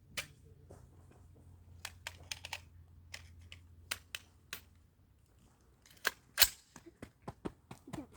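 Scattered sharp metallic clicks and rattles from handling a rifle's action, with the loudest click about six seconds in.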